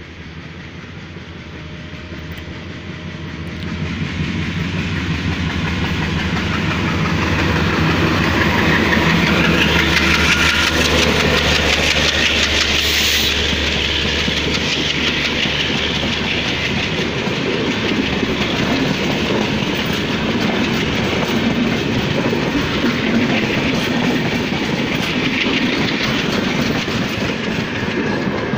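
Double-decker express train passing close by. The locomotive's engine drone builds as it approaches and goes past in the first dozen seconds, then the coaches roll by with a steady clickety-clack of wheels over the rail joints.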